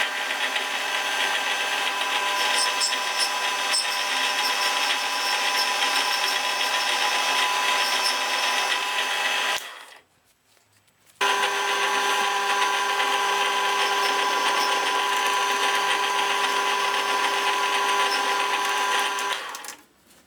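Small electric power tool running at a steady high speed in two runs of about nine and eight seconds, with a short stop about ten seconds in.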